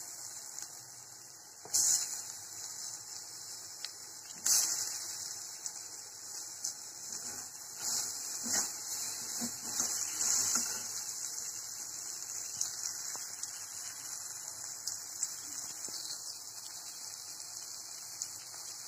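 Chopped tomato and spice masala sizzling as they fry in oil in a kadai, with a spatula scraping and stirring through the pan now and then, most often in the middle stretch.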